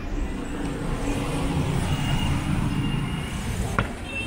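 A car drives past close by in street traffic; its engine and tyre noise swells and then fades. A single sharp click comes near the end.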